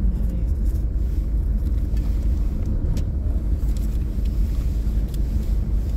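Steady low diesel engine rumble heard from inside a car's cabin.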